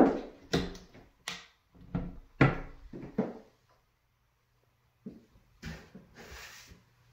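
Cabinet and closet doors being handled: a run of sharp wooden knocks and clacks in the first three seconds, the loudest at the very start, then a few softer knocks and a brief scraping rustle near the end.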